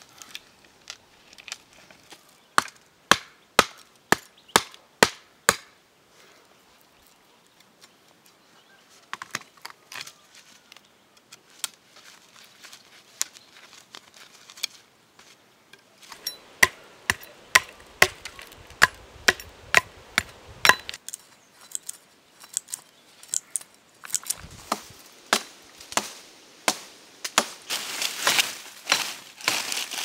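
Kukri-style machete chopping and splitting wood in sharp strikes: a steady run of about two blows a second in the first few seconds, scattered blows after that, then a quicker run. In the last few seconds the strikes come close together with the wood cracking and splintering.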